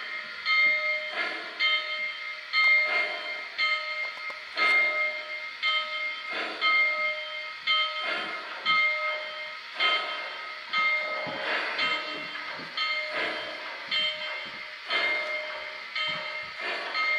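Model 2-8-2 steam locomotive's sound system chuffing slowly and steadily as it pulls its freight train, about one to one and a half chuffs a second, over a steady high whine.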